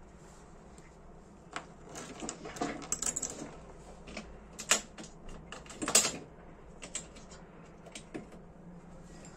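Irregular light clicks and taps of fingers handling tiny metal lighter parts, with two sharper clicks around the middle.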